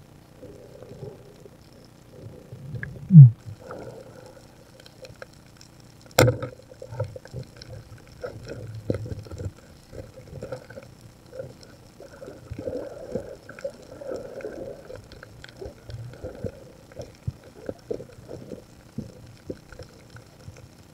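Underwater sound picked up through a diving camera on a reef at night: a muffled watery background full of scattered small clicks and crackles. A loud, short, low tone comes about three seconds in, and a sharp knock about six seconds in.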